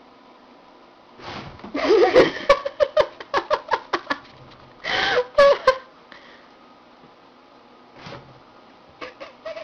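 Two house cats scuffling: hissing and yowling in bursts, with sharp clicks and scrabbling, from about a second in until about six seconds in, then a brief burst near eight seconds and more near the end.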